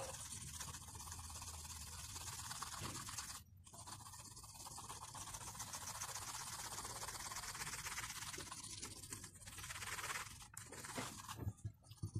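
Charcoal pencil shading, rapid back-and-forth strokes scratching on drawing paper, with a short pause about three and a half seconds in. A few soft taps near the end.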